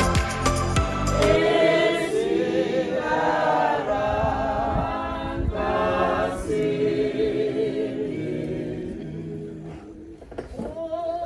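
A group of voices singing together without accompaniment, taking over about a second in from a music track with a steady beat that cuts off. The singing fades away near the end.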